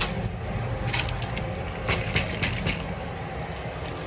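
Rustling and knocking of a handheld phone being moved about, with scattered clicks and a brief high squeak about a quarter second in.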